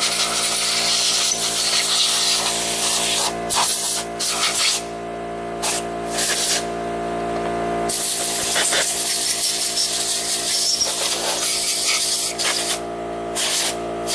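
Compressed-air blowgun blasting dust off a belt sander in bursts that stop and start several times, over the steady hum of an air compressor motor running.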